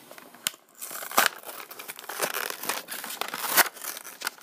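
A stiff plastic blister pack on a cardboard card is being cracked open and torn apart by hand. The plastic crinkles throughout, with sharp snaps about half a second in, at a little over a second, and loudest at about three and a half seconds.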